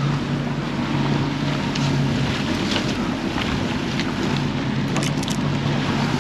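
Twin 150 hp outboard motors running steadily under way, a low even drone, over the rush of churning wake water and wind on the microphone.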